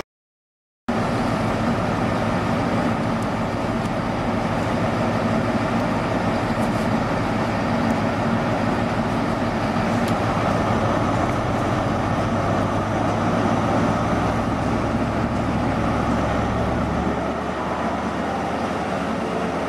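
Steady drone of a Great Western Railway HST power car's MTU V16 diesel engine running at the platform, after a second of silence at the very start. Its low hum changes about three-quarters of the way through.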